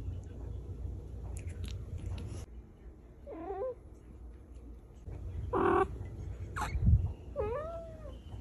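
Cat meowing three times: a short wavering call about three seconds in, a louder call near the middle, and a call that dips and rises in pitch near the end. A low thump falls between the last two calls.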